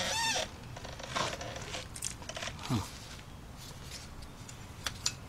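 A zip tie being pulled tight in short zipping pulls, its ratchet clicking through the head, among light handling clicks and knocks. A brief high wavering squeal at the very start.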